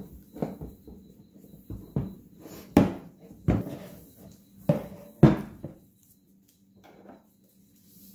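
Knocks and clatter of PVC pipe sections with galvanized steel auger heads being handled and set down on a wooden workbench. There are several irregular knocks, the loudest between about three and five seconds in, and then they stop.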